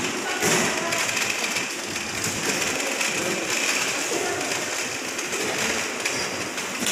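Steady background hiss of a large indoor hall, with faint distant voices.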